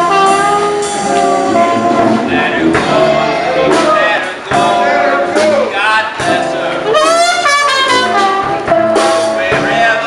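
A small jazz street band playing. Brass and saxophones carry the melody over sousaphone bass, acoustic guitar and drum kit.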